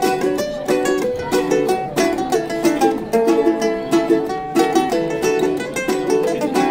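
Two ukuleles playing an instrumental cumbia passage: a steady rhythm of strummed chords with a line of held melody notes moving over it.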